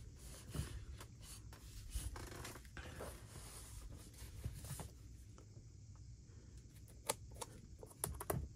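Faint rustling and light taps of a hand handling leather sneakers on a wooden desk, with a few sharp clicks near the end.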